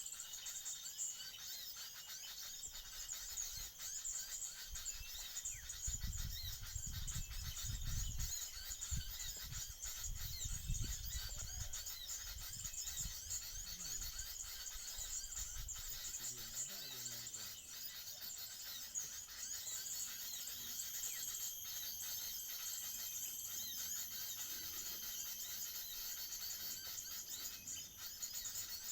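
Outdoor ambience of insects droning steadily, with high bird chirps mixed in. Low wind rumble on the microphone about six to twelve seconds in.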